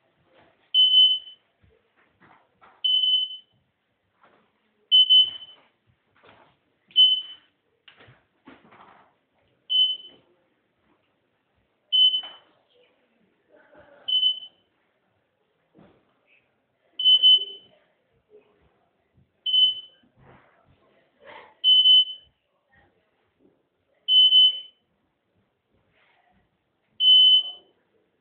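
A high-pitched electronic beeper sounding a short beep every two to three seconds, about a dozen beeps in all, with faint voices between them.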